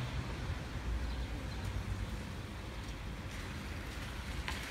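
Steady ambience of a wet street: a low rumble of distant traffic with a soft hiss above it.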